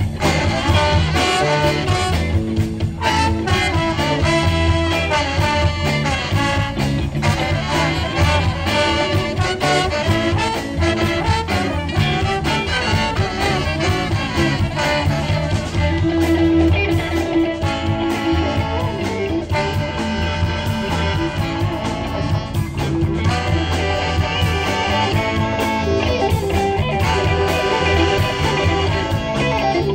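Live band playing with a horn section of trombone, trumpet and saxophones over electric guitar, bass and drums.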